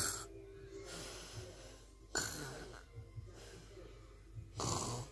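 A person snoring: one noisy snore tails off at the start, then two more follow about two and a half seconds apart, with quieter breathing between.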